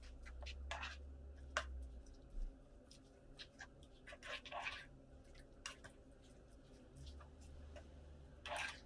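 A plastic slotted spatula stirring and scraping grated cheese melting into a creamy spinach mixture in a nonstick frying pan. The sound is scattered light clicks and soft scraping strokes.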